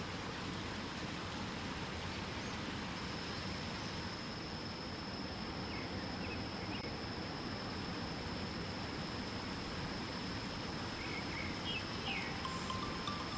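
Waterfall rushing steadily, with a thin, high, steady insect-like tone joining about three seconds in and a few short bird chirps. Near the end, soft chime-like musical notes begin.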